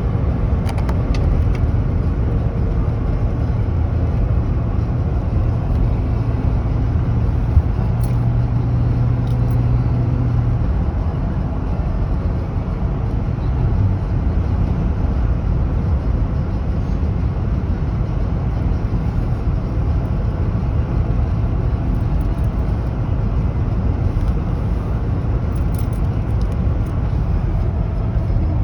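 A car running, with steady engine and road noise; a low steady hum in it stops about ten seconds in.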